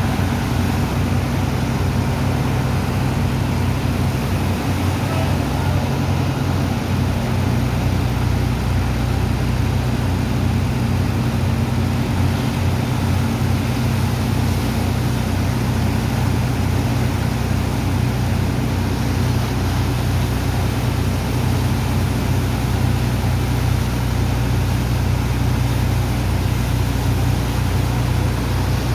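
Sand dredger's engine and pump running steadily under load, a constant low hum with an even rushing noise over it, as it pumps sand off a barge.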